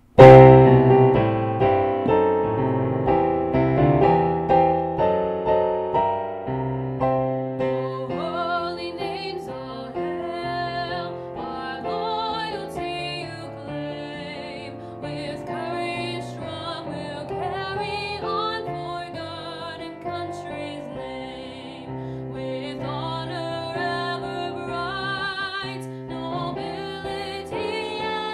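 A piano plays an introduction, then a female voice comes in about eight seconds in, singing with vibrato over the piano accompaniment.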